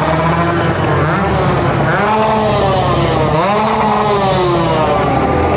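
Two-stroke engine of a modified Kawasaki Ninja RR 150 running at low speed with throttle blips: the revs rise quickly twice, then fall away slowly each time.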